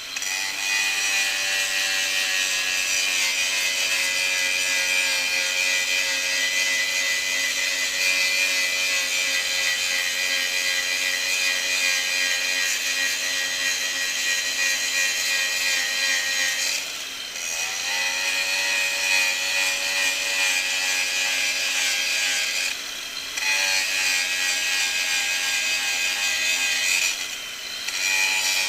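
Angle grinder running steadily against the rusty steel of an excavator idler, grinding off rust. The motor's steady whine sits under a hiss of grinding. The grinding eases off briefly three times, twice near the end, with the motor pitch dipping and recovering.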